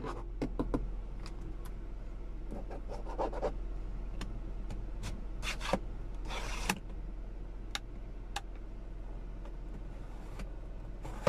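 Plastic sun visor and its vanity mirror cover being handled: scattered clicks and rubbing, with two longer scrapes about halfway through as the mirror cover is slid and the visor moved. A steady low hum runs underneath.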